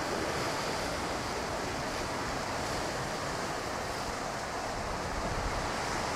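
Ocean surf with wind: a steady, even rushing with no distinct wave breaks standing out.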